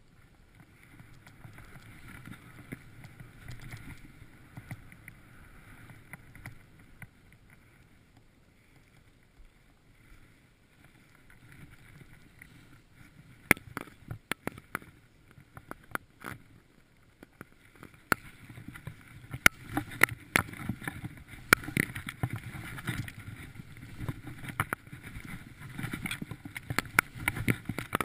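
Snowboard sliding and turning through deep powder snow: a low rushing noise, with sharp knocks and clicks starting about halfway through and coming more often and louder towards the end.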